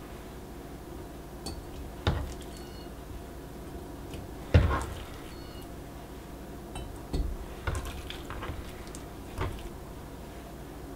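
Raw chicken pieces dropped by hand into empty glass quart canning jars: about five scattered soft thuds and glassy clinks, the loudest about four and a half seconds in.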